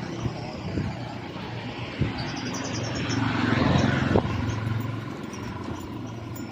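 A motor vehicle passing by, its engine hum and road noise growing louder to a peak in the middle and then fading away.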